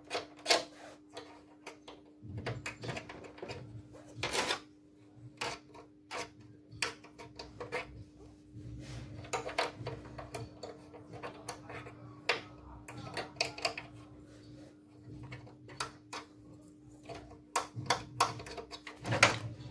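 Irregular scraping and clicking on hard plastic as hardened superglue-and-powder residue is rubbed and scraped off a mended copier paper cassette, over a steady low hum.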